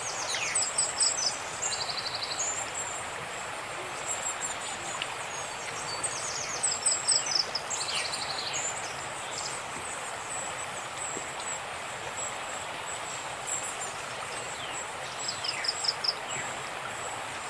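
Steady rushing of a river in flood, with birds calling over it: repeated high chirps, short rapid trills, and a few falling whistled calls.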